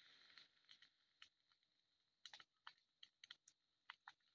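Near silence with faint, scattered short clicks and ticks, about a dozen spread irregularly through it.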